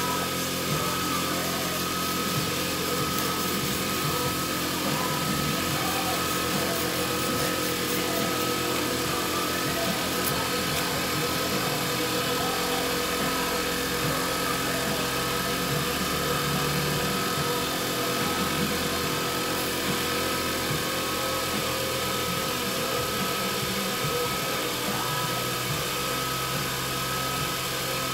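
Wood lathe running steadily with a constant whine, sandpaper held against the spinning pen blank and hissing on it.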